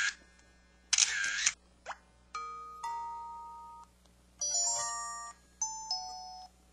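PH-K1500 mobile phone playing its built-in sound effects one after another: a short noisy burst, a quick upward sweep, then three short electronic chimes, each ringing and fading out.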